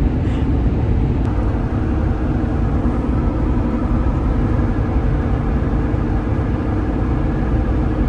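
Steady road and engine noise inside the cabin of a Jeep Wrangler Rubicon driving on the highway: a constant low rumble with a steady hum over it.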